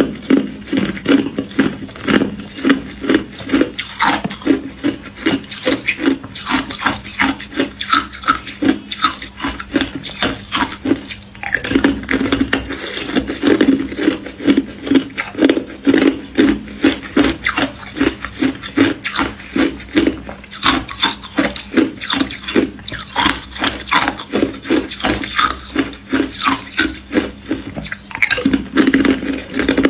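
Thin ice being bitten and chewed in the mouth, close up: rapid crisp crunches, about three a second, with a short lull about eleven seconds in.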